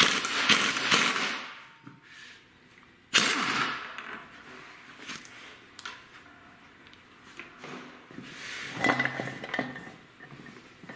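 Metal parts of a Porsche 915 manual gearbox being handled during teardown. A short rushing noise at the start and another beginning sharply about three seconds in, then scattered clicks and a cluster of metal clanks about nine seconds in as the front housing and gear stack are worked loose from the main case.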